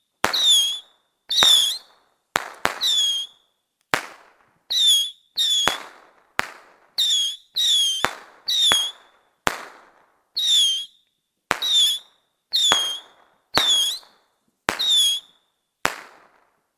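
Fireworks going off about once a second, each a sharp crack. Most cracks carry a short high whistle that dips in pitch and then holds, fading out in a crackling tail.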